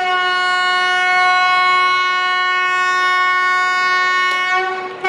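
Train horn sounding one long, steady blast that lasts about five seconds.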